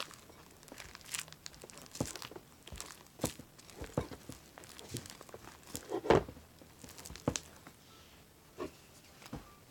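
Fluffy shaving-cream slime being mixed and kneaded, with irregular sticky crackles and pops, the loudest about six seconds in.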